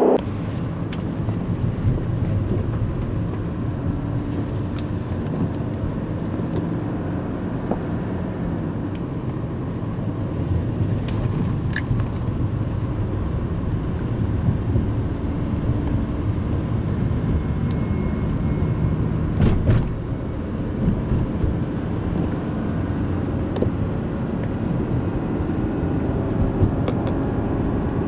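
Steady engine and tyre noise of cars cruising side by side, heard from inside one of them, with no hard acceleration. A short knock about twenty seconds in.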